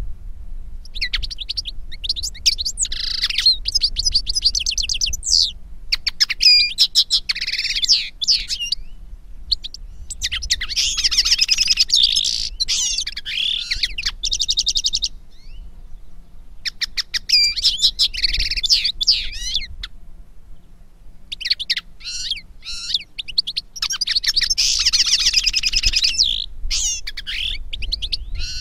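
European goldfinch and common linnet song: fast, twittering phrases of rapid high notes and trills, each a few seconds long, with short pauses between them.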